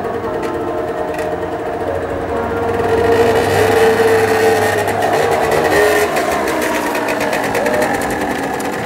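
Small moped scooter engine running with a steady buzz, growing louder about three seconds in as it is throttled up and easing off again near the end.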